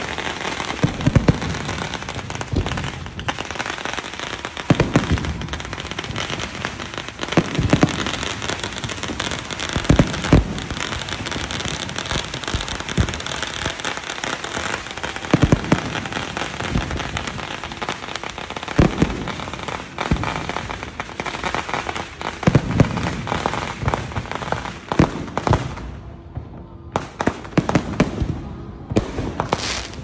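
Aerial firework shells bursting in a display: repeated deep booms a few seconds apart over continuous crackling. The crackle thins out near the end.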